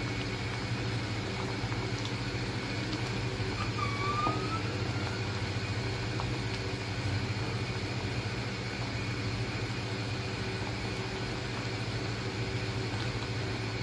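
A steady low machine hum, unchanging throughout, with one short rising squeak about four seconds in.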